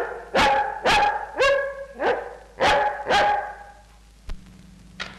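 A long-haired Labrador barking seven times at an even pace, about two barks a second, stopping about three and a half seconds in. The dog is a trained performer barking out a number to answer a spoken question.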